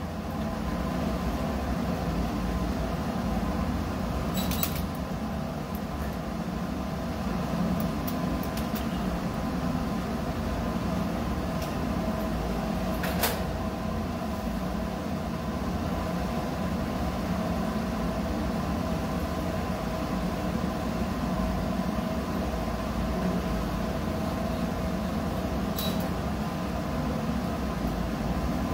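Steady low machinery drone with a faint constant hum. A few light clicks and taps sound over it, the sharpest about halfway through.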